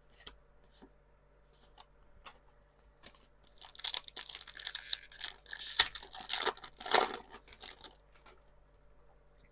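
Foil booster-pack wrapper of a Pokémon trading card pack being torn open and crinkled: a few light clicks of handling, then several seconds of tearing and crackling starting about three seconds in.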